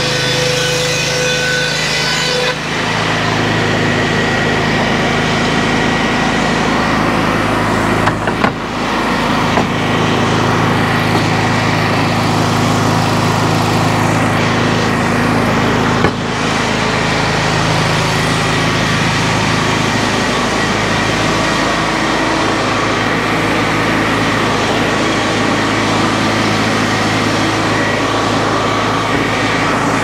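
Sawmill board edger running steadily under load as a board feeds through its strobe saw blades. Its note drops a little about two seconds in, and there are a couple of knocks along the way.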